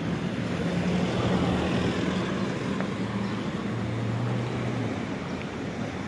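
Road traffic: the low hum of nearby vehicle engines running over a steady wash of road noise, the hum fading out about five seconds in.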